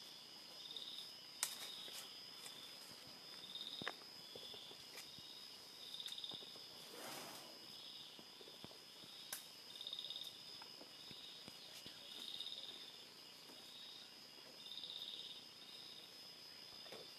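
Faint dusk forest insects: a steady high-pitched drone with a pulsing chirp repeating about once a second, and a few sharp clicks and snaps scattered through.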